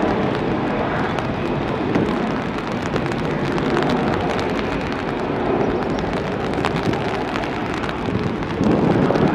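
Jet engines of an Airbus A330 airliner at takeoff thrust as it climbs away, a steady rumbling rush with fine crackle through it.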